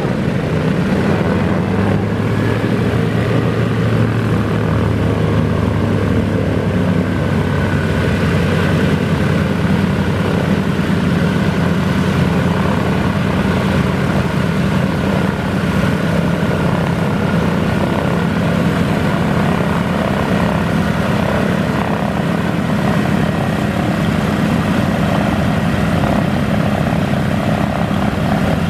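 Douglas DC-3's two radial piston engines running at low power as the airliner taxis and turns: a steady propeller drone whose note moves higher about seven seconds in.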